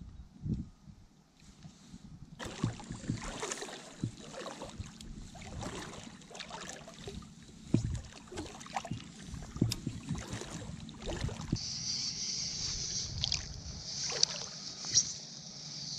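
Water splashing and sloshing close by as a small fishing craft is propelled across a pond, in many short strokes after a quiet first couple of seconds. A steady high hiss joins about three-quarters of the way through.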